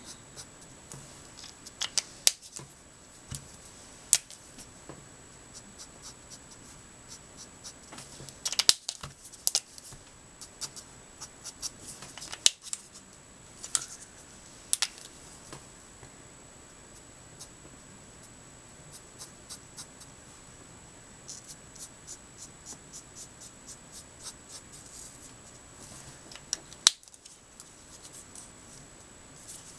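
Letraset Promarker alcohol markers being handled and stroked on card: scattered sharp clicks and short runs of quick, light scratching strokes, over a faint steady high whine.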